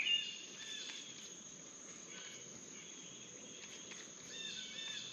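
Steady, high-pitched insect chorus, with a bird calling briefly at the start and again near the end.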